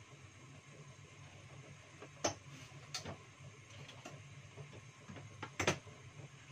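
Gas stove burner running under a pot of soup: a low steady hum, broken by four sharp clicks, the loudest about two seconds in and again near the end.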